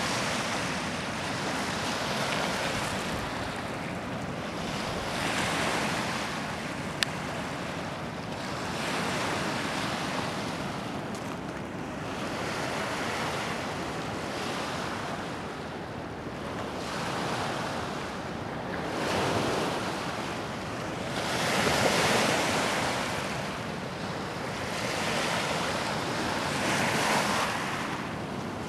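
Waves washing in, a rushing noise that swells and fades every few seconds, with wind buffeting the microphone. A single sharp click comes about seven seconds in.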